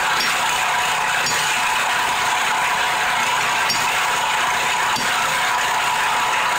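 Small gas engine of a 30-ton hydraulic log splitter running steadily, with a few faint short ticks over it.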